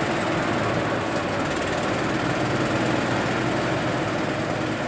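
Antique Mack truck's engine running with a steady, rapid pulse as the truck pulls slowly away.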